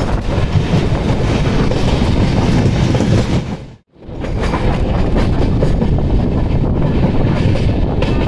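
Moving passenger train heard from on board: wheels rumbling and clattering over the rails at speed. The sound cuts out briefly about four seconds in and comes straight back.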